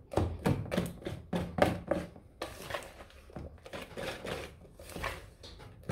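Metal wire whisk beating a thick cornmeal cake batter in a plastic bowl, mixing in the baking powder: a steady run of short scraping strokes, about three a second.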